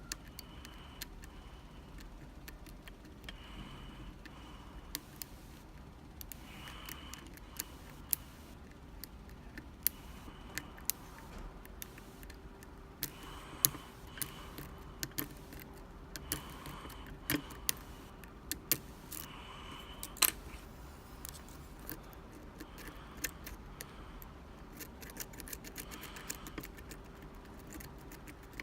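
Irregular small metallic clicks and ticks of a lock pick and tension wrench working the pins of a six-pin Medeco Classic lock cylinder.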